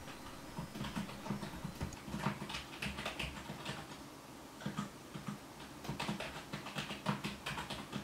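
Typing on a computer keyboard: runs of quick key clicks, with a short pause about halfway through.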